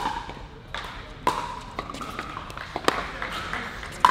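Pickleball rally: hard paddles strike the plastic ball in a series of sharp pops about a second and a half apart, each with a short ring and hall echo, with lighter clicks of ball bounces and footsteps between them.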